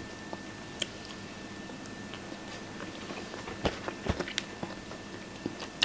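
Two people eating toast, baked beans and eggs: quiet chewing and biting, with scattered short clicks of forks on plates, several close together about four seconds in.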